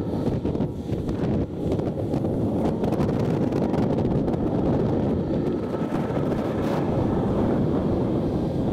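Wind buffeting the microphone: a steady, rumbling noise.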